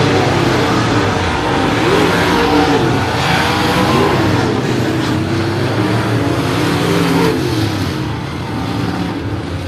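Several dirt late model race cars' V8 engines at racing speed, the engine pitch rising and falling as the drivers lift into the turns and get back on the throttle. A little quieter near the end.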